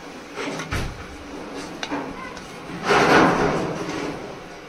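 Golgappa puris frying in hot oil: light clicks of a utensil, then a loud burst of sizzling about three seconds in that fades over about a second.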